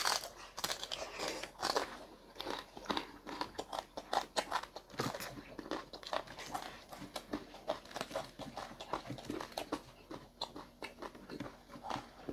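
People eating: irregular crunching bites and chewing sounds, a quick scatter of clicks and crackles with no steady rhythm.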